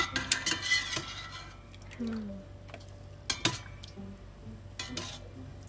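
Stainless steel tongs clanking against the rim and side of a metal stock pot while boiled chicken pieces are fished out of the broth: a cluster of metallic clinks in the first second, then single clanks about three and a half and five seconds in.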